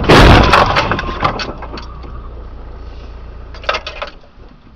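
Car collision heard from inside the camera car: a sudden loud crash of impact with a clatter of breaking parts that dies away over a couple of seconds, and a second, shorter burst of noise near the end.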